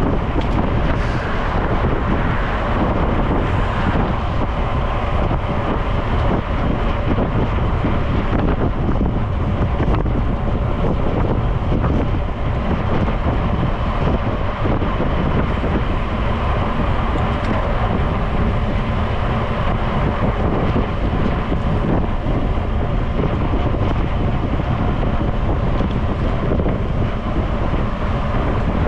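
Steady wind rush buffeting the microphone of a camera carried on a road bicycle moving at speed.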